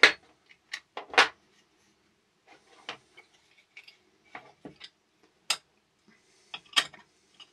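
Small steel open-ended spanner clicking and clinking against steel nuts, bolts and washers as the nuts are tightened, with the spanner at times pulled against magnets. It makes scattered sharp metal clicks at irregular intervals, the loudest two near the start and about a second in.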